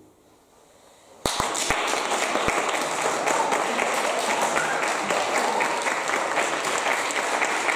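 A brief hush, then audience applause breaks out suddenly about a second in and continues steadily.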